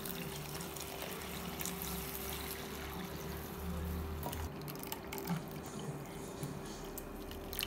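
Milk pouring in a steady stream from a steel tumbler into a clay pot.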